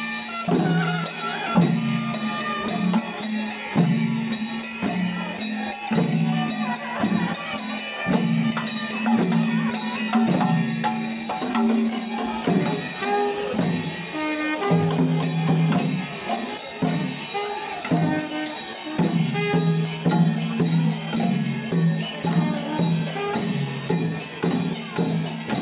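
Kerala temple processional music played steadily: drums and jingling cymbals, over held low notes that step in pitch every second or so.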